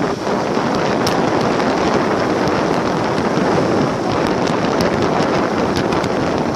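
Wind buffeting the microphone of a camera on a moving motorbike: a steady loud rush, with the motorbike's engine and road noise underneath and a few scattered light ticks.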